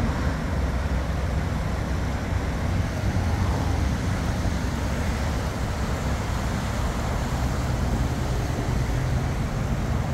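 Steady low roar of road traffic mixed with the rush of the swollen, fast-flowing river.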